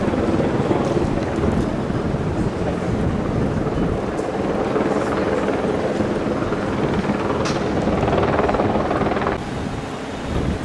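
A steady mechanical drone with a low hum of several held pitches, dropping in level about nine seconds in.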